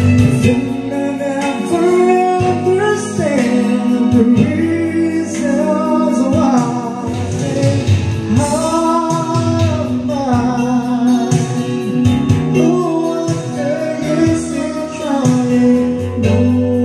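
A karaoke song playing from a Platinum Kapitan 2 DVD karaoke player: a slow ballad, with singing over instrumental backing.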